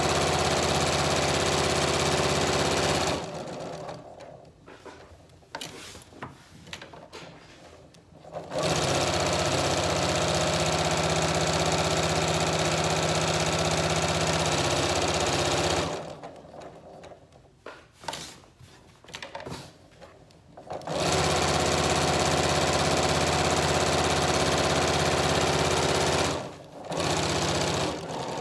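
Janome electric sewing machine stitching a quarter-inch seam through a pocket and its lining, running in spells of several seconds with stops about 3, 16 and 26 seconds in. Small handling sounds fill the pauses while the fabric is repositioned.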